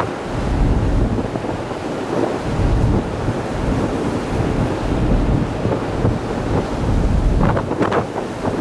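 Wind buffeting the microphone in an uneven low rumble, over the steady rush of the sea beside a moving ferry.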